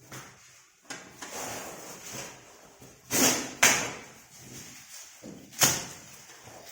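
Packing supports being pulled off a new refrigerator. Scraping and rustling run throughout, with three loud, sharp knocks about three, three and a half and five and a half seconds in.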